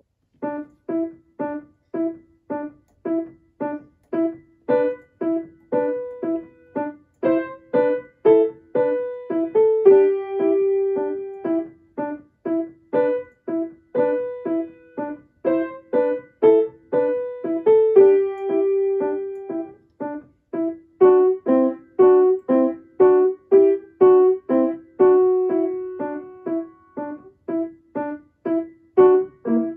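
Grand piano played solo: a steady run of short, detached notes at about two a second in the middle register, broken a few times by longer held notes.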